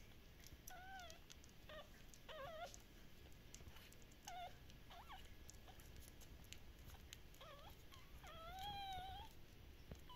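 Very young Shiba Inu puppies giving faint, high squeaks and whimpers: a handful of short wavering cries, then one longer cry near the end.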